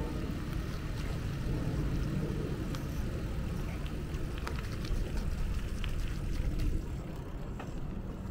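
Street noise heard while riding a bicycle: a steady low rumble of road traffic and wind, with a few faint scattered clicks.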